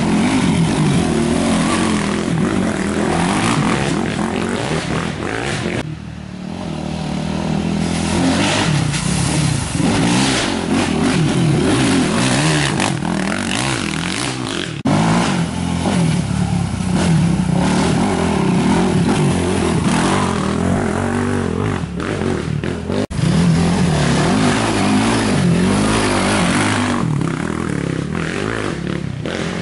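Racing quad (ATV) engines revving and accelerating along a dirt trail, pitch rising and falling with the throttle, with a few short dips in loudness.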